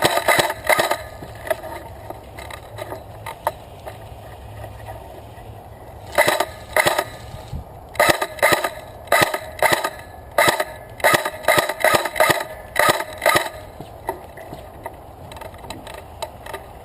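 Rapid crunching footsteps, about three steps a second, in runs: a few steps at the start, two about six seconds in, then a steady run of steps from about eight seconds in to past thirteen seconds.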